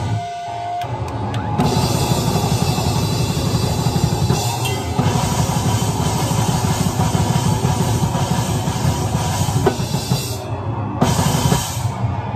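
Drum kit played hard at close range, bass drum and cymbals prominent, as part of loud live rock music. It thins out briefly near the start, then the full kit and band come back in about a second and a half in.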